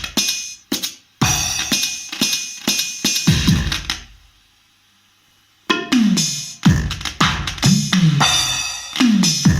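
Electronic drum sounds from a Roland SPD-20X percussion pad being played: deep kick drums that drop in pitch, mixed with cymbal and hi-hat hits. The playing stops for about a second and a half midway, then starts again.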